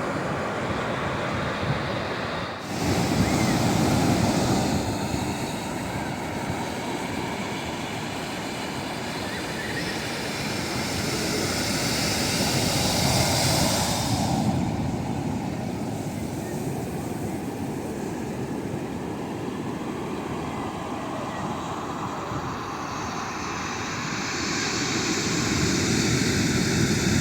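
Ocean waves washing onto the shore: a continuous surf noise that swells and eases, changing abruptly about two and a half seconds in and again about halfway through.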